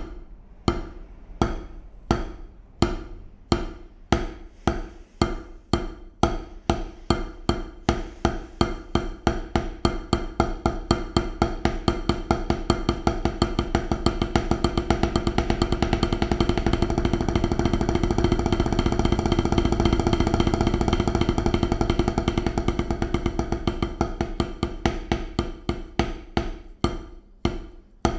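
Wooden drumsticks playing a double stroke roll on a practice pad set on a snare drum, two bounced strokes per hand, played relaxed and letting the sticks bounce. The strokes start slow and separate, speed up into a fast, even roll about halfway through, then slow back down to separate strokes near the end.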